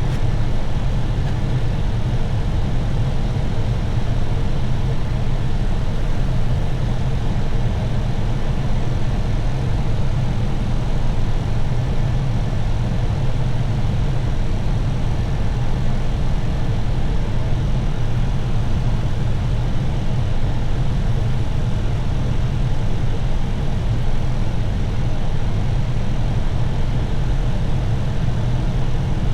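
Steady flight-deck noise of an Airbus A321 on final approach: a low, even rumble of airflow and CFM56-5B engines at approach power, with the landing gear extended.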